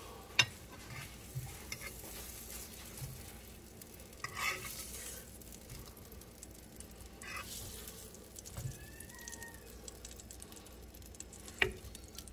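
Pork sausage patties sizzling faintly in the pan of a countertop air fryer oven, with a few sharp clicks and knocks of handling: one just after the start and one near the end.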